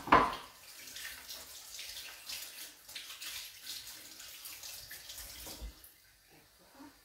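Kitchen tap running with water splashing unevenly over hands being rinsed under it, stopping about six seconds in. A loud clatter right at the start.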